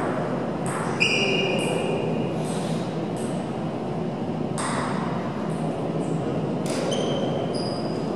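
Scattered table tennis ball hits, sharp clicks each followed by a brief high ring, about half a dozen spread out, the first near one second in the loudest. A steady background hum of the hall runs underneath.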